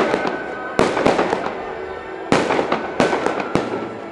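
Aerial firework shells bursting: about five loud bangs, one every second or so, each trailing off in a long echoing rumble.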